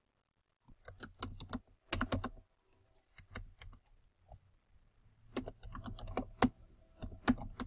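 Typing on a computer keyboard: quick runs of key clicks in bursts, with a pause of over a second in the middle before a final dense run.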